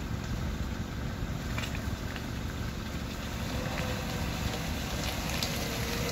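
Suzuki Jimny 4x4 running at low revs as it crawls through deep mud, with its tyres squelching and spattering in the ruts over a steady engine rumble. A faint steady whine comes in about halfway through and rises slightly toward the end.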